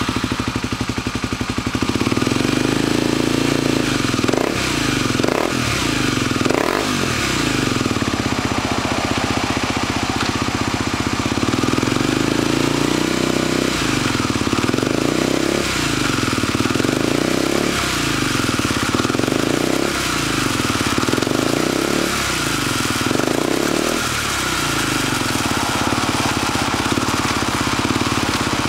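Kawasaki D-Tracker's single-cylinder four-stroke engine running through an aftermarket exhaust. It idles steadily, is blipped a few times about four to seven seconds in, then is revved up and down repeatedly for several seconds before settling back to idle. It runs cleanly with no abnormal noises, the sign of an engine in good health.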